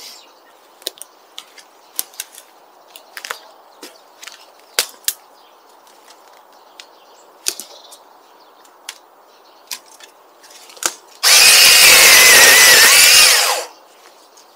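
Scattered cracks and clicks of dry sticks and twigs being handled and stepped on, then a power saw runs for about two seconds near the end, cutting a branch, and stops abruptly.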